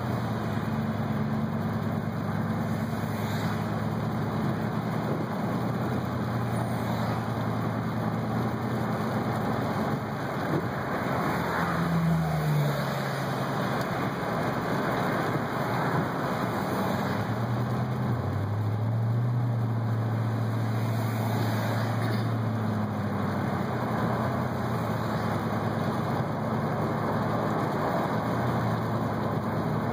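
Car cabin noise while driving on a wet highway: a steady hiss of tyres and road with the low hum of the engine, whose note shifts in pitch a couple of times.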